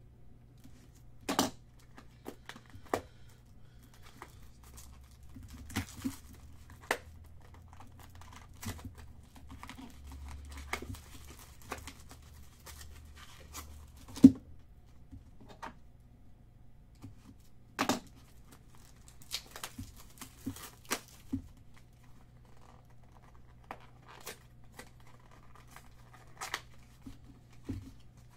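Packaging of a sealed trading-card box being torn open and crinkled, with scattered sharp clicks and knocks as the box and its mini boxes are handled; the loudest knock comes about halfway through.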